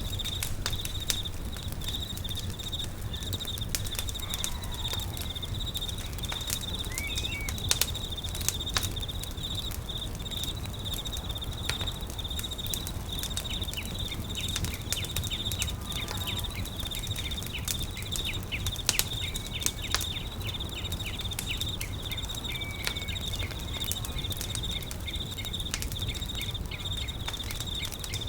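A campfire crackling, with frequent sharp pops at irregular intervals, over a low rumble. Behind it an insect trills steadily and fast. A few short bird-like chirps come through, the clearest about a quarter of the way in and again about four-fifths of the way in.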